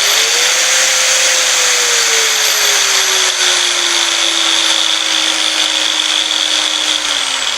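Electric angle grinder running free through a potentiometer speed controller, its motor whine changing with the knob setting. The whine rises to a peak about a second in, then slowly drops, and near the end begins to fall away as the motor slows down.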